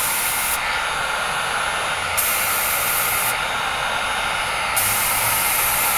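Badger 250 airbrush spraying leather print colour, hissing in three bursts of about a second each over a steady background hiss.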